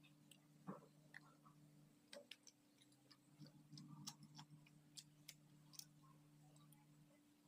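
Faint, scattered wet mouth clicks and smacks from chewing soft sponge cake close to the microphone, over a steady low hum.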